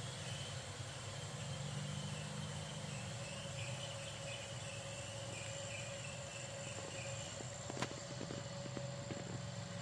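Steady outdoor background hiss and low hum with a faint high chirping in the first two-thirds, then a sharp click about eight seconds in followed by a scatter of light ticks.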